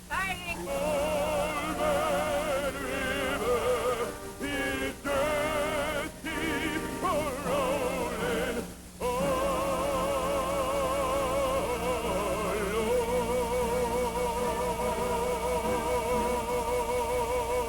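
Singing in an operatic style with a wide vibrato, in phrases that give way after about nine seconds to long held notes. A steady low electrical hum runs underneath.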